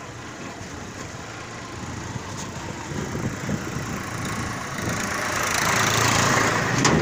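A moving vehicle's engine running with road and wind noise; a hiss builds and grows louder over the last couple of seconds.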